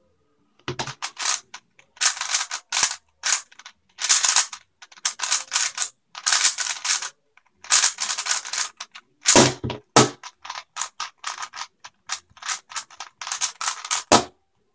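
Plastic 3x3 speed cube being turned fast by hand: rapid bursts of clicking and clacking as the layers snap round, with a few heavier knocks among them.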